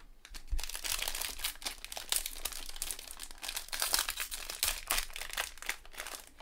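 Plastic cello wrapper of a pack of football trading cards crinkling and crackling as it is handled and opened, starting about half a second in.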